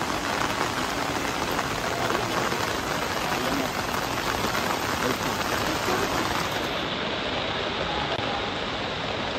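Heavy rain pouring steadily on open stone paving, a dense, even hiss. About seven seconds in it turns duller, losing its highest hiss.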